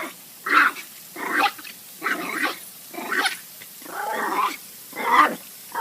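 A pet animal making a run of short vocal calls, about seven in a row, each under a second long. One call about four seconds in is longer and bends in pitch.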